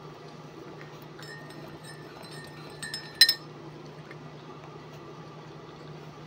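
A metal spoon clinking against a ceramic coffee mug while stirring: a few light ringing clinks, then one sharp, louder clink about three seconds in. A steady low hum runs underneath.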